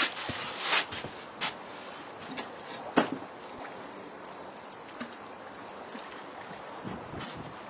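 A few sharp knocks and thumps of footsteps and gear on a small boat's deck in the first three seconds, then a steady hiss of wind and water around the boat.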